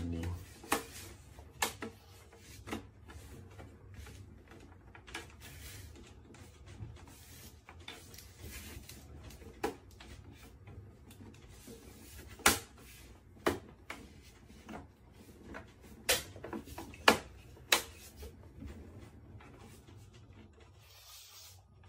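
Irregular clicks and knocks of hard parts being handled during work on an HP all-in-one PC, with a few sharper knocks near the middle and later on, over a faint low hum.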